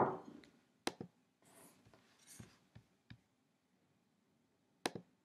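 A few small clicks and soft rustles in a quiet room: a sharp click right at the start is the loudest, fainter clicks and brief scratchy rustles follow, and another sharp click comes near the end.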